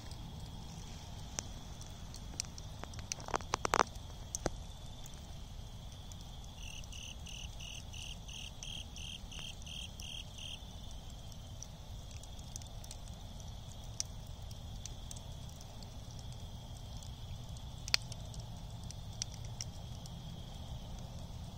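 Glowing wood embers crackling with scattered sharp pops, a quick cluster of them about three to four seconds in and a single louder pop near the end. Under them runs a steady high-pitched insect drone, joined from about seven to ten seconds in by a pulsing insect call, about three pulses a second.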